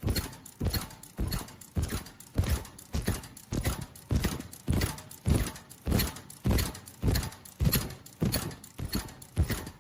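Automatic flat-mask inner-ear-loop welding machine cycling, a sharp mechanical knock a little under twice a second, one stroke per mask at its rated 100–120 pieces a minute.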